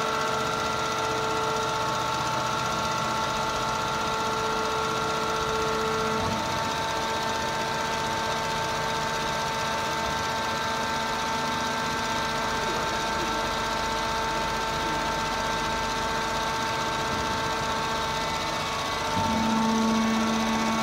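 Wood sawdust pallet hot press machinery running: a steady mechanical hum made of several tones over a bed of noise. The tones shift about six seconds in, and near the end a lower hum comes in and the sound gets slightly louder.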